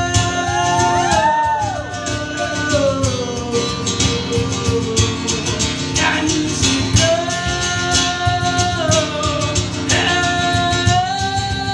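Live song: a man singing over a strummed acoustic guitar, drawing out the word "grow" in long held notes, with sliding ornaments in the first couple of seconds.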